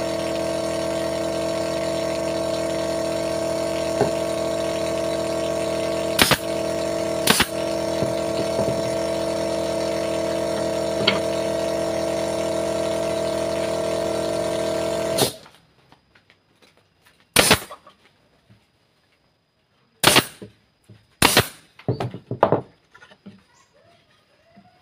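Air compressor motor running with a steady hum for about fifteen seconds, then cutting out abruptly. A few sharp knocks follow in the quiet that remains.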